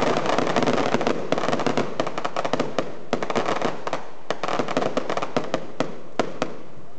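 Fireworks tube spewing sparks, with a dense, rapid crackle of small pops over a hiss. The crackle thins out to scattered single cracks and stops about six and a half seconds in.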